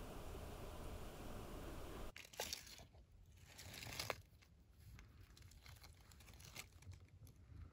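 Faint steady hiss that stops abruptly about two seconds in. It is followed by faint crinkling and crackling of a clear plastic container being handled among wet leaves, with two louder crackles.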